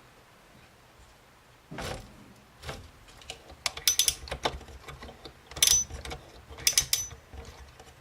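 Small metal and plastic parts clicking and rattling as the Y-axis GT2 timing-belt clamps are tightened and the belt is pulled tighter. It is quiet at first, then there is a soft scrape about two seconds in, followed by irregular clicks and ticks.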